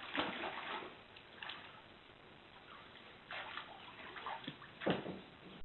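Faint water splashing and sloshing in a few short bursts.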